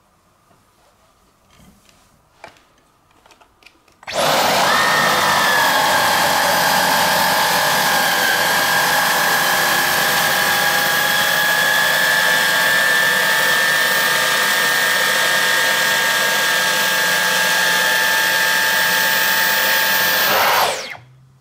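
Dyson V15 Detect Absolute cordless stick vacuum switching on about four seconds in, its motor rising to a loud, steady high-pitched whine as it is pushed over a fabric cat cushion. It switches off near the end and winds down with a falling pitch. A few faint clicks come before it starts.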